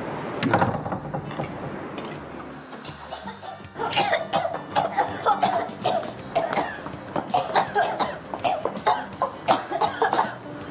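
Two women coughing hard and repeatedly, starting about four seconds in, over background music.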